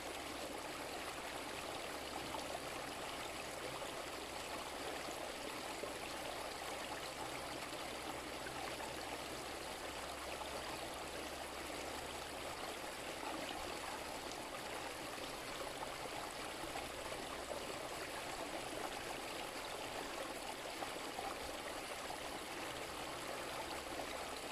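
A small brook running steadily over a little waterfall, making a constant rush and babble of water.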